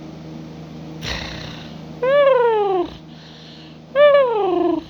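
A cat purring steadily, with a short breathy sound about a second in, then two long meows, each falling in pitch.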